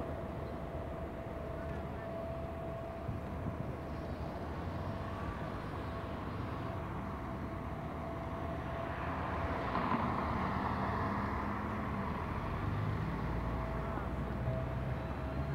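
Road traffic: a steady wash of car noise with a faint steady hum underneath, and one vehicle passing louder about nine to twelve seconds in.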